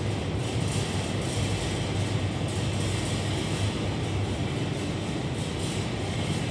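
Steady low rumble and hiss of an underground metro station, with no pauses or sharp sounds.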